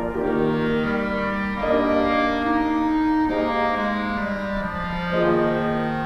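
Clarinet playing a melody in held notes over piano accompaniment.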